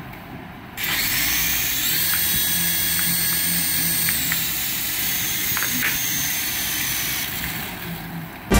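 Small electric motors of a toy remote-control helicopter start about a second in and spin its rotors with a steady high whir. The pitch drops a little partway through, and the whir fades near the end.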